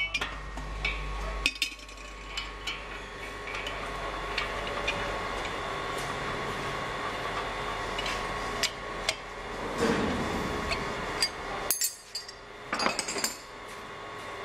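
Steel wrenches clinking and scraping against the spindle nut and stainless-steel bowl of a tubular centrifuge as the nut is worked: scattered sharp metal clicks, with a quick cluster of clinks near the end. A low hum cuts off about a second and a half in.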